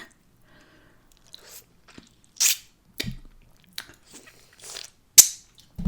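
Close-miked eating sounds: chewing and wet mouth noises in several short separate bursts, with two louder hissing ones about two and a half and five seconds in.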